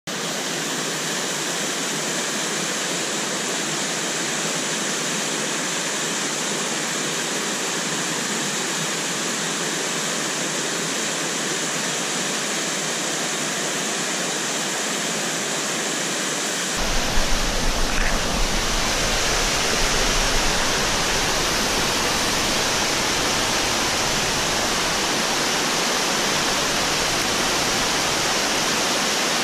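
Mountain-stream waterfall rushing steadily over rocks. About two-thirds of the way in the sound shifts to a deeper rumble, with a few brief bumps.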